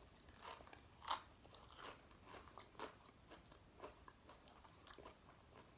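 Faint crunchy chewing of food close to the microphone: a run of short crunches about twice a second, the loudest about a second in.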